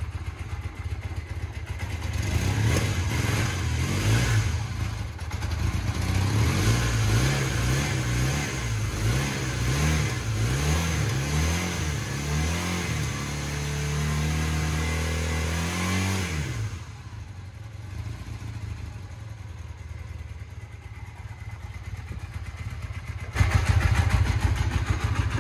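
Honda CB450T Hawk's parallel-twin engine revved by hand again and again, its pitch rising and falling, then dropping about 16 seconds in to a low idle. The owner finds the idle low and ready to die, which he thinks means the carburetors are still out of adjustment.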